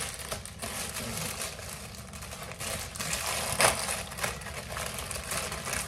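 Clear plastic bag crinkling and rustling as hands work it open to get the mask out, an irregular run of small crackles with one louder crackle about three and a half seconds in.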